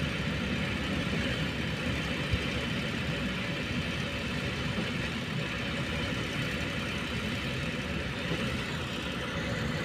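Diesel engines running steadily, from a concrete mixer truck with its drum turning and the trailer concrete pump it is feeding. A single short click about two seconds in.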